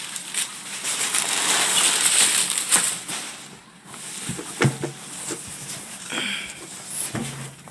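Crumpled packing paper rustling and crinkling as hands dig a subwoofer recone kit out of a box. The rustling fades after about three and a half seconds and gives way to a few soft knocks as the cone and surround are handled.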